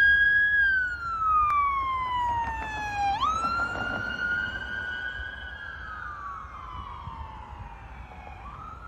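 Police SUV's siren wailing, its pitch sliding slowly down, jumping back up about three seconds in, then slowly rising and falling again. It grows fainter as the vehicle drives off into the distance, over a low traffic rumble.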